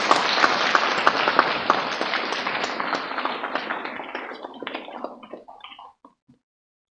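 Audience applauding: a dense round of clapping that thins out and dies away to a few scattered claps about six seconds in.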